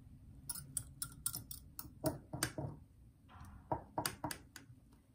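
Small metal wire whisk clinking against a glass jar while powder is stirred into milk: a run of irregular sharp clicks with a brief pause a little after three seconds in.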